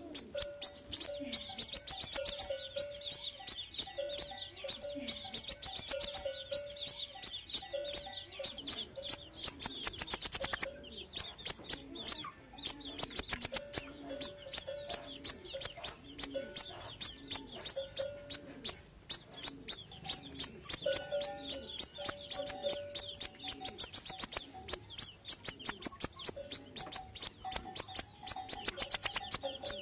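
Sunbird song in an unbroken stream of rapid, high-pitched chips and trills, with a few short breaks, played as a lure call. Lower, evenly repeated notes run underneath.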